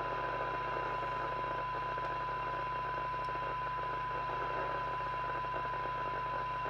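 Steady test tone from the President Walker ASC FM CB radio's receiver, half buried in even receiver hiss. The signal generator is turned down to a weak signal near the set's sensitivity limit, which is how the receiver coils are peaked for best SINAD.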